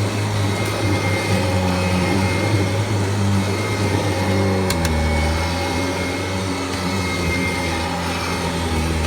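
A 1994 Kirby Generation 4 upright vacuum's motor runs with a steady hum and a faint high whine. About halfway through there are two sharp clicks, and the hum settles to a slightly lower note. The owner thinks the machine might need a new belt.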